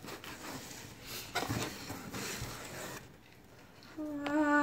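Cardboard box and packaging being handled and pulled open: rustling, scraping and small knocks for about three seconds. About four seconds in, a brief steady held tone sounds for about a second.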